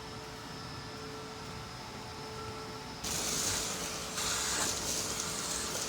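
An electric power tool running with a steady whine. About three seconds in, a louder hissing noise joins it, breaks off briefly a second later, then goes on.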